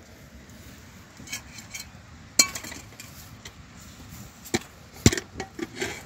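A handful of sharp knocks and clinks at irregular intervals, the loudest about two and a half seconds in and a quick cluster near the end, as of hard objects being handled and set down.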